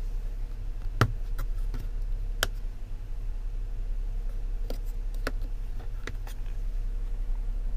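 Several sharp clicks and light taps of a hand handling the hard plastic of a Jeep Wrangler's rear center console, scattered irregularly, over a steady low hum.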